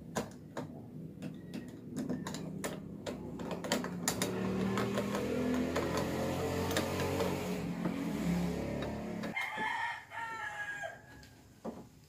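Phillips screwdriver clicking and scraping against a doorknob's metal rose as its mounting screws are driven, with a rooster crowing in the background about ten seconds in. A steady low drone swells through the middle and stops about nine seconds in.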